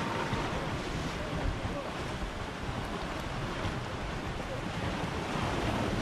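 Steady rush of surf breaking on a rocky shore, with wind buffeting the microphone.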